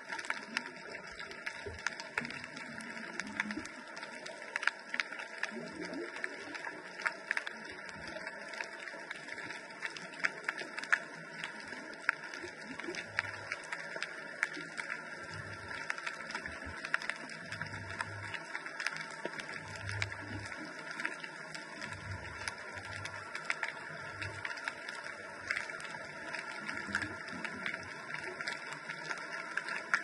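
Underwater ambience heard through a GoPro's waterproof housing: a dense, steady crackling of many fine clicks, muffled and filtered. Through the middle comes a string of low, muffled thumps.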